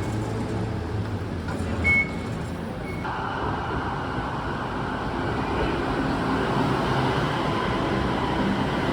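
Steady traffic noise with a short high electronic beep about two seconds in; the background changes abruptly about three seconds in.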